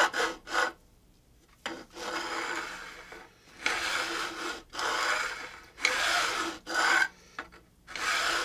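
A file drawn in long back-and-forth strokes over the metal frets of a guitar neck, rubbing and rasping, as the frets are dressed. Two short scrapes, a pause of about a second, then about five strokes of roughly a second each.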